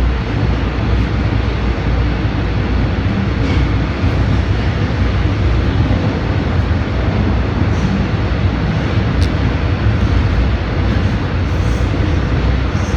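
Subway train running through a tunnel, heard from inside the car: a steady, loud low rumble of wheels on rail, with a few faint clicks and one sharp click about nine seconds in.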